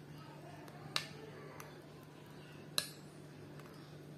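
Faint, light metallic clicks, two clearer ones about two seconds apart, as a metal flower nail holding a whipped-cream rose is turned in the fingers during piping, over a steady low hum.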